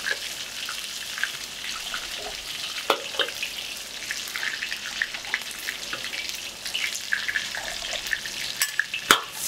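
Food sizzling in hot oil in a wok, a steady hiss with scattered light clicks and scrapes of a metal spatula or ladle against the pan. A sharp metal knock comes just before the end.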